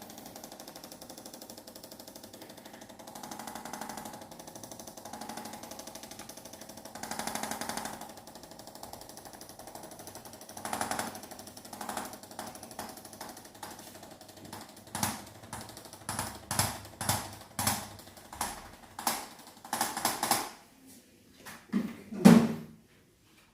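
Arthrostim handheld adjusting instrument running: a rapid, machine-like stream of taps, steady at first and then in short, louder bursts through the second half. A single louder knock comes near the end.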